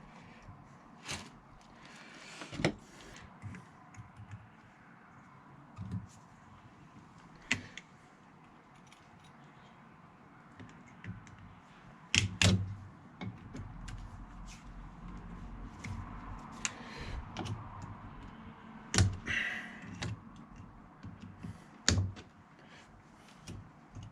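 Scattered clinks and knocks of hand tools and metal parts being handled and set down, about a dozen irregular strikes with the sharpest a little before halfway and twice near the end.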